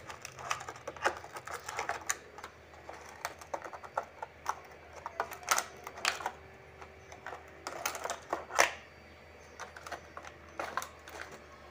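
Thin clear plastic mold crackling and clicking in an irregular run as it is flexed and pressed, and a knife tip pries out the hardened sugar discs, with a few louder cracks about halfway through and near the end.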